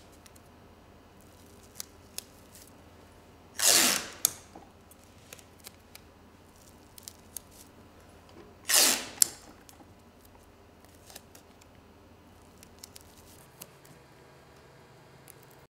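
Masking tape pulled off the roll twice, each a short ripping pull of about half a second ending in a sharp snap as the strip is torn off, with faint ticks and rustles of tape being pressed onto cling film between.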